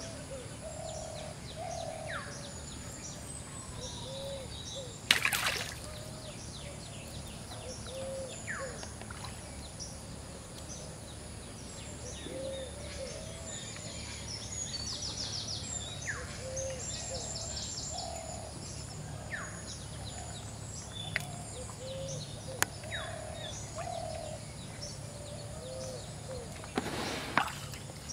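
Outdoor ambience of birds calling: short, low, arched calls repeating every second or two, over scattered higher chirps and a steady low background hum. A sharp noisy burst about five seconds in and another near the end stand out as the loudest sounds.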